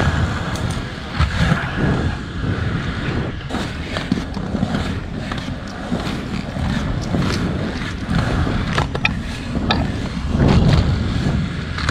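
100 mm inline skate wheels rolling over pavement: a steady low rumble with scattered sharp knocks of the skates on the ground, louder near the end.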